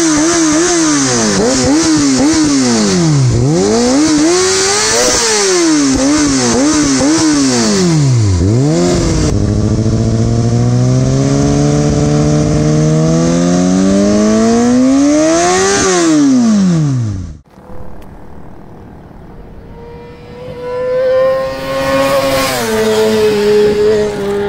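2019 Kawasaki ZX-6R's 636 cc inline-four revving through a LeoVince slip-on exhaust: a run of quick throttle blips at standstill, then one long steady rev climbing to a peak that cuts off sharply. After that, more faintly, the bike pulls along the road, its pitch rising and then dropping at a gear change near the end.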